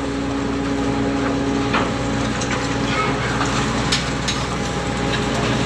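Steady hum of ship's engine machinery, with scattered sharp knocks and clatters over it.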